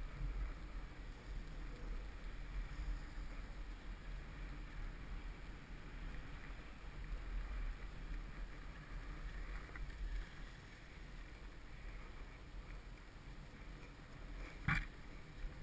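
Snowboard sliding down a groomed piste, its base and edges hissing and scraping over packed snow, with wind buffeting the action camera's microphone as a low rumble. A single sharp knock near the end.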